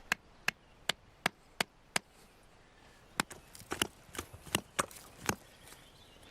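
Teepee stakes being hammered into the ground: a run of sharp knocks about two and a half a second, a pause of about a second, then a second, less even run of blows.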